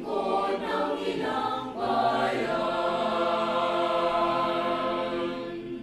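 Small mixed choir of teenage voices singing together, settling about two seconds in onto a long held chord that fades away near the end.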